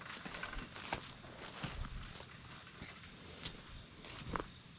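A steady high-pitched insect chorus, with a few faint footsteps on the forest floor.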